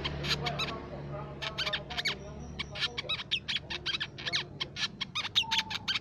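Crimson sunbird calling: a series of short, sharp, high chips, few at first and then coming thick and fast from about two seconds in, over a low rumble.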